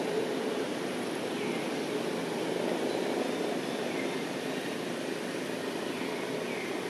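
A steady low drone of distant engine noise that eases off slightly after the first second, with a few faint short high chirps.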